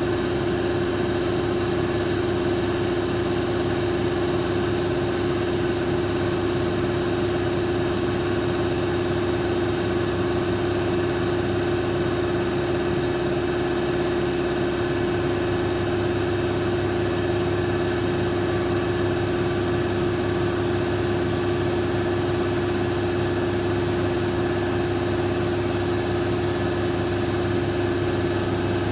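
Lathe running steadily, a constant machine hum with a steady mid-pitched tone and a faint high whine over a hiss.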